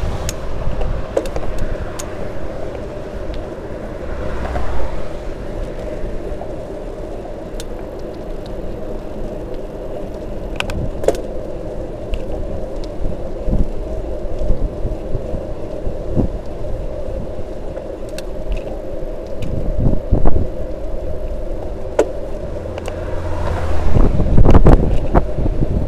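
Wind buffeting the microphone of a handlebar-mounted camera while riding a bicycle, over a steady hum with scattered clicks and rattles from the bike. The wind swells louder near the end.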